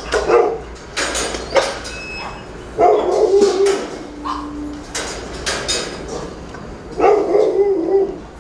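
Kennel dogs barking and whining in loud bursts at feeding time, eager for their food, with a few sharp knocks between the barks.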